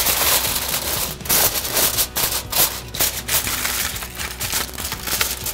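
Aluminium foil crinkling and crackling in irregular sharp bursts as it is pressed down and crimped over the edges of a pan to tent it.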